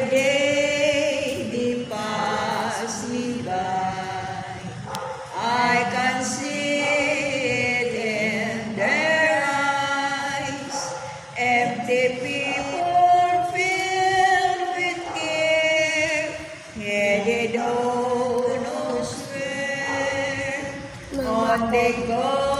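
Two women singing a hymn together from a hymnbook, in phrases of long held notes, with electronic keyboard accompaniment.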